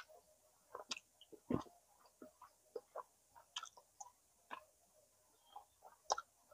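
A person eating smoked chicken close to the microphone: quiet, irregular chewing with wet mouth clicks and smacks.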